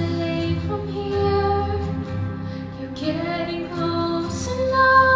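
A girl singing a solo into a microphone, holding long sung notes with slides between them, over instrumental accompaniment.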